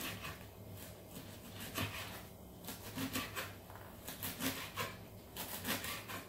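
Kitchen knife slicing collard green leaves on a wooden cutting board: irregular runs of sharp taps as the blade cuts through the leaves and strikes the board.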